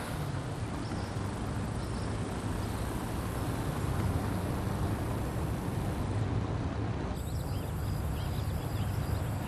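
Car driving down an open road, heard from inside the cabin: a steady low rumble of engine and tyre noise. About seven seconds in the sound changes, and faint short chirps come in over a lower rumble.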